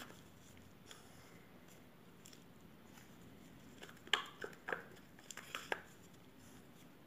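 Faint room tone, then from about four seconds in a short run of scrapes and taps as a wooden stir stick scrapes thick, freshly mixed foam resin out of a plastic cup.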